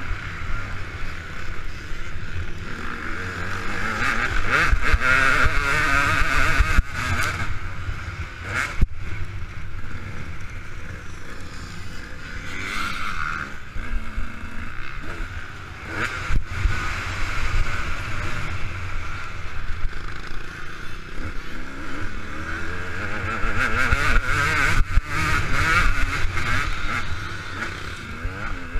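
KTM 200 EXC two-stroke single-cylinder engine revving up and dropping off again and again as the dirt bike is ridden hard around the track, heard from on board the bike.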